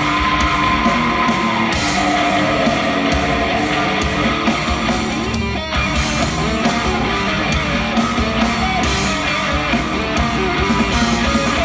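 Live heavy rock band playing an instrumental passage: distorted electric guitars, bass and drums, with a brief break about six seconds in.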